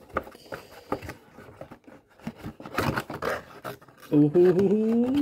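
Cardboard toy packaging box being handled and opened, with scraping, rubbing and small clicks of cardboard. Near the end comes a drawn-out, rising "ooh".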